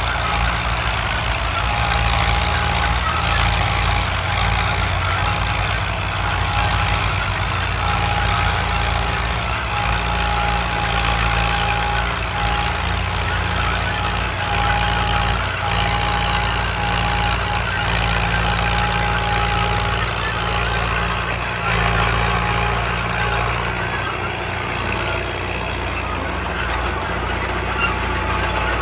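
Fiat tractor's diesel engine running steadily under load while pulling a plough, with a thin steady whine above the engine note that fades out about three-quarters of the way through.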